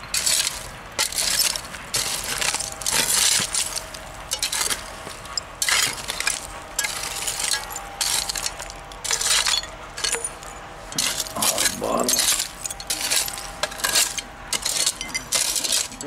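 A hand digging tool chopping and scraping through dirt packed with old glass bottles and shards: a run of irregular strokes with glass clinking and rattling in the soil.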